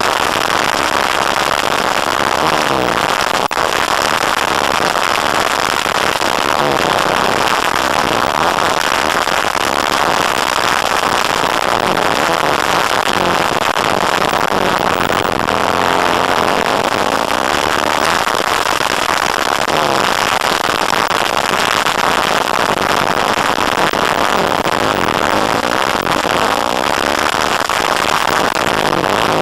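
Engine of an off-road vehicle under hard running on a dirt track, heard close from a camera mounted on the vehicle, its pitch rising and falling again and again as it revs up and eases off, under a dense rattling noise.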